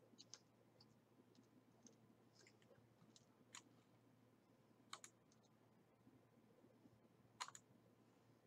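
A few faint computer mouse clicks over near-silent room tone, with the loudest clicks about five seconds in and again about seven and a half seconds in.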